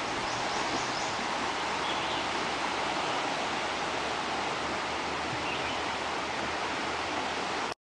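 Little Miami River water rushing over a shallow riffle: a steady rushing that cuts off suddenly near the end.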